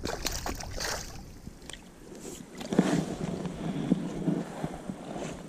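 Shallow creek water splashing and sloshing as a hand-held smallmouth bass is let go in the water, in uneven splashes, the strongest about a second in and about three seconds in.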